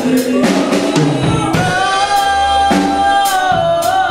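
Live gospel praise music: a woman singing into a microphone, holding one long wavering note through the middle, over a drum kit with cymbals.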